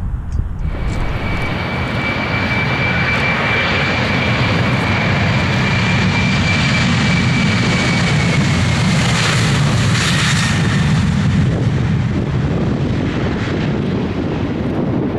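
Airliner's engines running loud: a rushing roar with a steady high whine that dips slightly in pitch and fades about eleven seconds in, over a low rumble.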